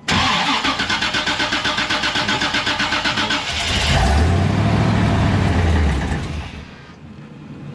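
1988 Chevy Suburban's 7.4 L 454 V8 being cranked by the starter in a rapid even rhythm, catching about three and a half seconds in, running for a couple of seconds, then dying away. It won't stay running for lack of fuel pressure, traced to a failed in-tank fuel pump.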